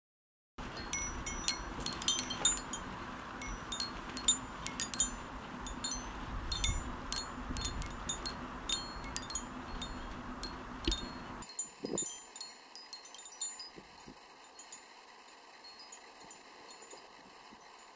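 Wind chimes tinkling in irregular clusters of high ringing strikes over a steady hiss. About eleven seconds in the hiss cuts out abruptly and the chimes go on more faintly.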